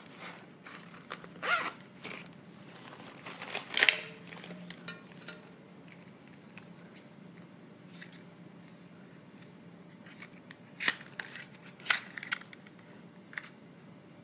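Hands handling packaging: rustling and crinkling of a plastic bubble mailer and wrapping, with scattered sharp clicks and taps from a small cardboard box and bottle. The loudest bursts come about four seconds in and twice more near the end.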